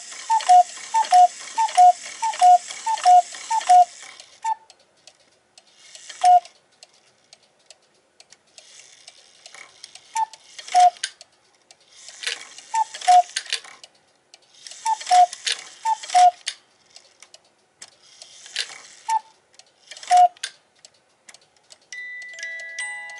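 Clock's rack-and-snail strike train running and sounding a falling two-note call for each count: about eight in quick succession over the whir of the train, then single counts several seconds apart as the train is let down slowly. The strike train fails to lock because the rack stop runs off the rack. Near the end a music box begins playing.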